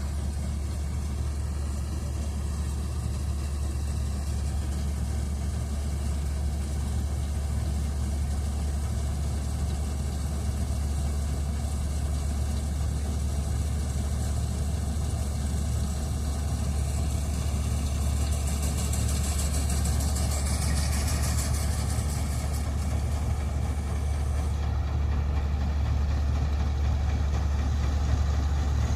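Matharu 4000 combine harvester's diesel engine running steadily, a constant low drone that grows slightly louder toward the end.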